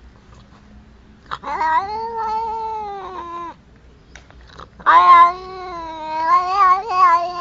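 A domestic cat yowling in two long drawn-out calls. The first lasts about two seconds; the second starts about five seconds in, wavers in pitch and carries on.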